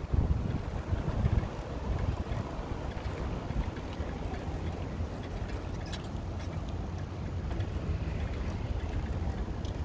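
Wind buffeting the camera microphone: a steady low rumble with a faint hiss over it.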